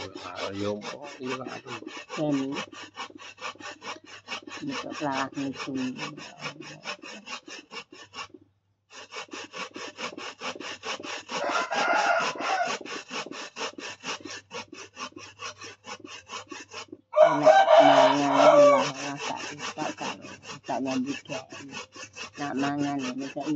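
Coconut flesh being grated by hand on a flat metal grater: a steady run of rasping strokes, several a second, with two short breaks. A chicken calls in the background, loudest about three-quarters of the way through.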